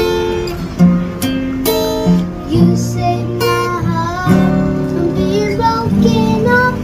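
Acoustic guitar strummed and plucked, with a voice singing a melody over it.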